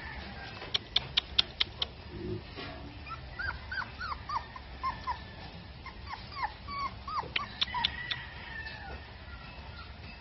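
Chow chow puppy whimpering: a string of short, high whines, each rising and falling, following a quick run of sharp clicks about a second in.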